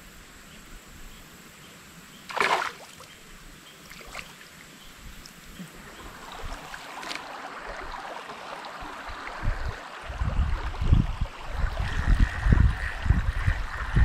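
Creek water trickling and flowing, with a short splash about two and a half seconds in. From about ten seconds in, heavy bumps and rustling of clothing and a hand against the microphone, with a faint steady high whine near the end.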